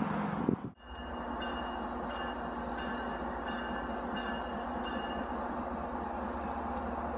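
Wind buffeting the microphone, cut off abruptly under a second in. Then the steady low rumble of a freight train hauled by diesel locomotives, with faint high-pitched tones coming and going.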